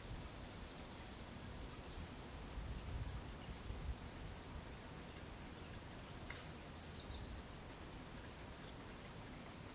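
Small bird calling in woodland: a short high note, another a couple of seconds later, then a rapid high trill of about seven notes lasting about a second, some six seconds in, over a steady low background rush.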